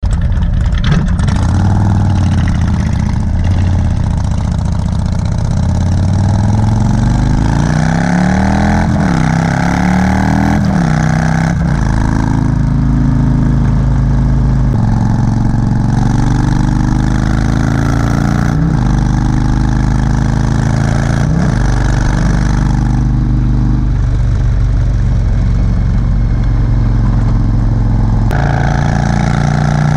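Motorcycle engine pulling away and accelerating up through the gears, its pitch rising in each gear and dropping at each shift, then running steadily at highway speed. Wind rush on the microphone runs under it.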